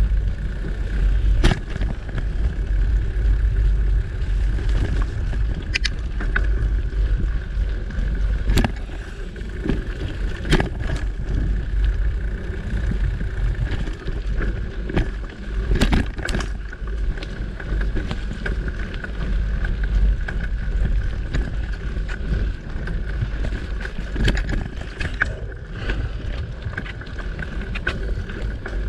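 Mountain bike riding over a dirt singletrack, heard from a camera on the bike: heavy wind rumble on the microphone under tyre noise, with scattered sharp clicks and rattles from the bike going over bumps.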